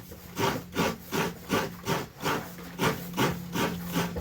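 Rhythmic hand scraping, about two and a half strokes a second, with a steady low hum underneath.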